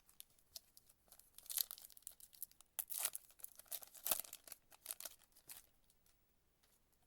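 A trading-card pack wrapper being torn open and crinkled: a run of crackling tears lasting about four seconds.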